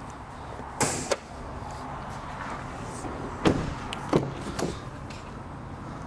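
A handful of sharp knocks and clunks over a steady background hum: a pair about a second in, the loudest about three and a half seconds in, and two more just after four seconds.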